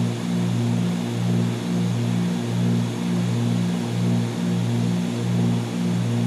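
Cessna 310Q's twin piston engines and propellers drone steadily in the climb, heard inside the cabin. The drone throbs regularly, about every three-quarters of a second, as the two engines beat against each other at slightly different speeds.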